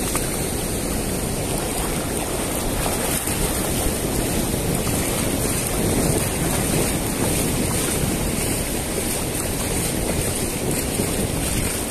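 Steady rush of flowing river water, with wind buffeting the microphone.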